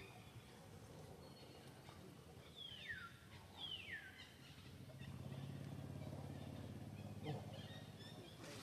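Two high animal calls about a second apart, each falling steeply in pitch, followed by a low steady hum lasting about three seconds.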